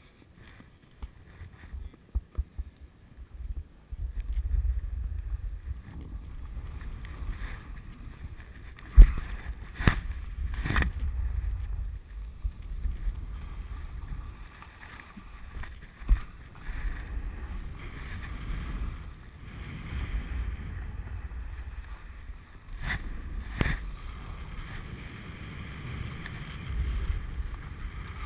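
Wind buffeting a helmet- or body-mounted GoPro's microphone as the wearer snowboards down a groomed run, a low rumble that picks up a few seconds in, with the board sliding over the snow. A handful of sharp knocks cut through it, the loudest about nine seconds in.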